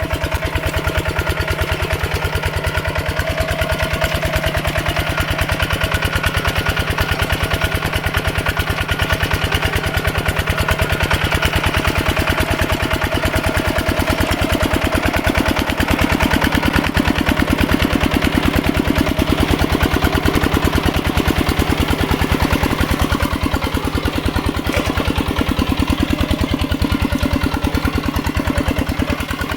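Mini tractor's single-cylinder diesel engine running steadily with a fast, even beat.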